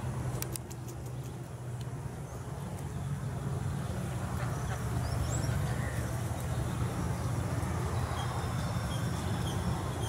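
Steady low rumble of outdoor background noise, with a few sharp clicks about half a second in and faint, short high chirps around the middle and again near the end.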